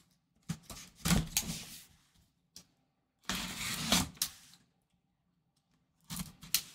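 A taped cardboard box being cut open with a blade, with the box handled and shifted between cuts. It comes as several separate bursts of scraping, the longest about three seconds in, with a single click in between.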